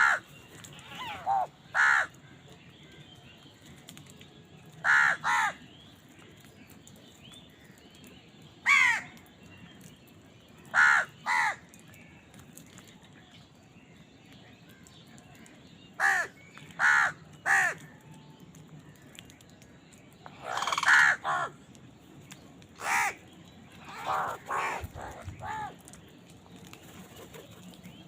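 Crows cawing: short harsh caws, some single and some in quick pairs, a few seconds apart, with a denser cluster of calls about two-thirds of the way through.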